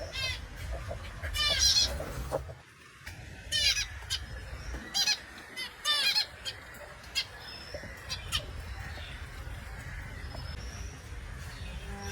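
Small pet finches calling: short, nasal, honking chirps that come in quick little runs and then thin out to single calls, over a steady low rumble.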